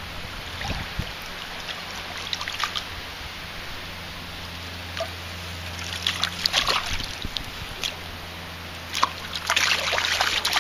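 Shallow river water splashing and sloshing as a hooked brown trout thrashes near the surface close to the bank, in three bursts, the longest and loudest near the end.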